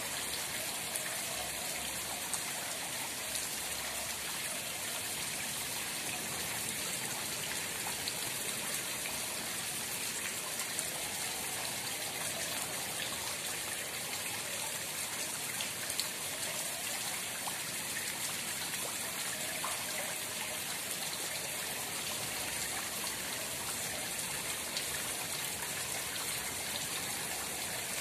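Pond water splashing and trickling steadily, with a few small sharp drips or plops.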